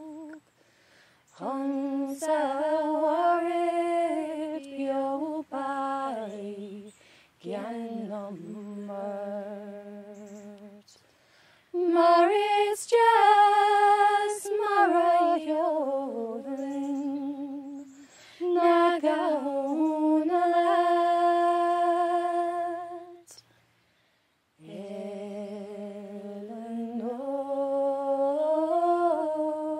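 Unaccompanied sean-nós singing in Irish, sung solo in ornamented phrases with short pauses for breath between them. A boy's voice sings the first lines, and a young woman's voice takes up the verse about twelve seconds in.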